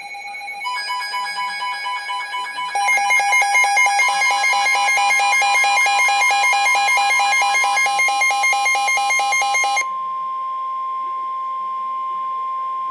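Electronic emergency-alert attention tones. A steady chord of several pure tones becomes a rapidly pulsing, warbling multi-tone alarm about three seconds in. About ten seconds in it switches to a single steady tone of about 1 kHz, the weather-radio warning alarm tone that comes before the spoken warning.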